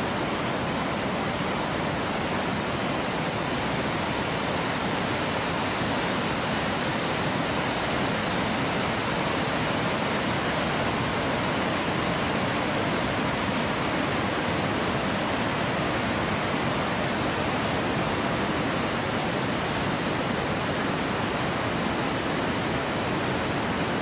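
Gullfoss waterfall and the whitewater rapids of the Hvítá river above it, rushing steadily as one unbroken wall of water noise.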